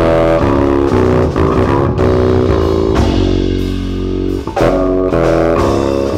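Rock music led by an electric bass guitar playing a melodic line of plucked notes, with one long held note past the middle.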